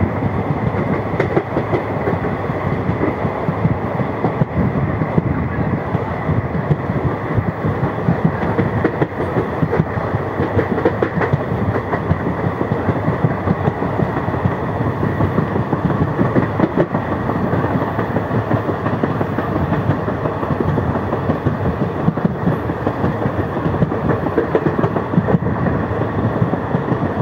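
Indian Railways passenger train running, heard from an open coach door: a steady rumble and clatter of wheels on the rails, with a faint steady high tone running through it.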